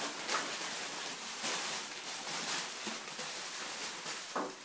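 Plastic bubble wrap rustling and crinkling as it is handled and pulled apart, with a few light crackles.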